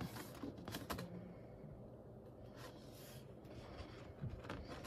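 Sheets of heavy coloring-book paper being handled and lifted: soft rustles and a few light taps, the loudest within the first second, with a couple of fainter rustles about halfway through.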